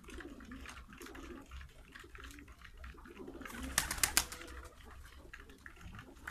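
Domestic pigeons cooing and pecking seeds off concrete, with many small ticks and a short run of louder sharp clicks or flaps a little past halfway.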